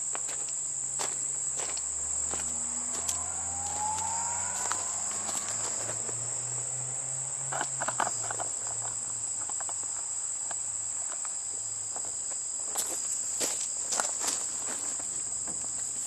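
Crickets chirping in a steady high trill. Scattered sharp clicks and knocks come through it, bunched about eight seconds in and again near the end.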